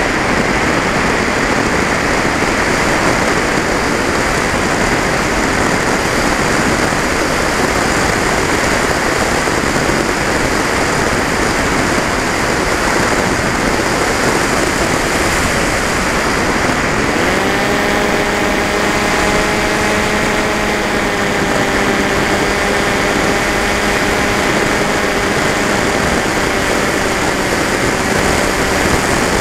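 FPV model aircraft in flight, heard through its onboard camera: a steady rush of wind and propeller noise. About halfway through, a steady motor whine joins with a short rise in pitch and holds.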